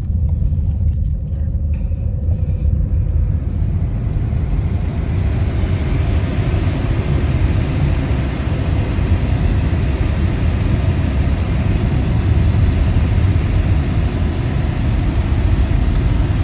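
Blizzard wind buffeting the phone's microphone: a loud, steady low rumble, joined from about four seconds in by a rushing hiss of wind and blowing snow.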